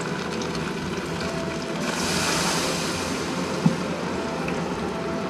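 Hot oil sizzling steadily as tempura-battered garfish deep-fries. The hiss surges louder about two seconds in as a piece goes into the oil, and a single light knock follows a little later.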